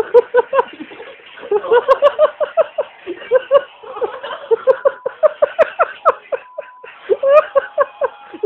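A person laughing hard in quick, high-pitched giggles, breaking off briefly a few times and starting again.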